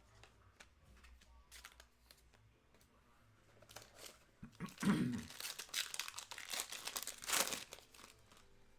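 A trading card pack's wrapper being torn open and crinkled: a few seconds of loud crackling starting about halfway in, with a dull thump at its start, after some faint light ticks.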